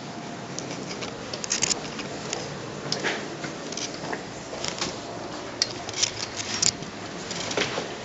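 Footsteps on a hard floor with irregular clicks and scuffs of handheld-camera handling noise, over a steady background hiss.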